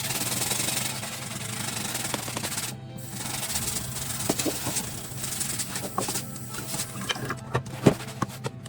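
Scrubbing with a kitchen sponge, a rough rubbing noise that breaks off briefly about three seconds in and then goes on, with light clicks and clinks in the second half. Background music plays underneath.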